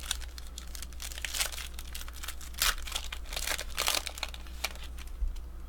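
Crinkling and tearing of a foil trading-card pack wrapper being handled, in several short crackling bursts.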